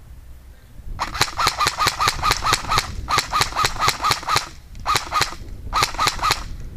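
Airsoft electric rifle firing on full auto in four bursts of rapid, evenly spaced shots: a long one about a second in, a second right after, then two short ones near the end.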